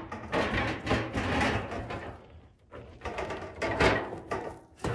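Shovel scraping and digging into dirt, about five rough strokes roughly a second apart.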